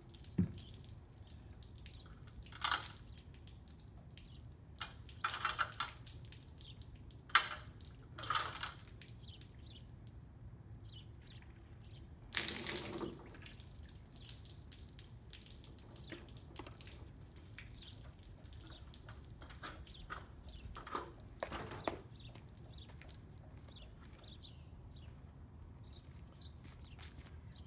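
Water splashed from a jug onto a shuttle bus's metal roof, heard as a scatter of short splashes and drips, for a leak test of the roof seams.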